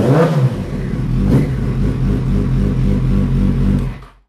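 Yamaha FZ1's inline-four engine running through a freshly installed MIVV slip-on exhaust with a gutted header catalytic converter. It is idling, with two quick throttle blips, one right at the start and one about a second and a half in. The sound stops just after four seconds in.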